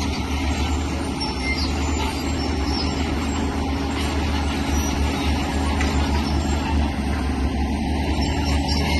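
Diesel engine of a heavy earthmoving machine running steadily, with a deep, even drone.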